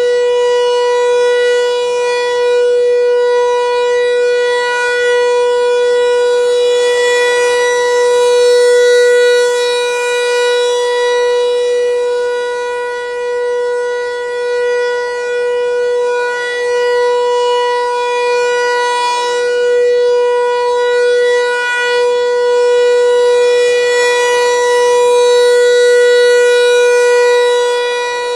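ASC T-128 electromechanical outdoor warning siren sounding a steady alert tone at full speed, held at one pitch, for a tornado warning. Its loudness swells and fades slowly as the siren head rotates, and a fainter, lower-pitched tone is heard at times.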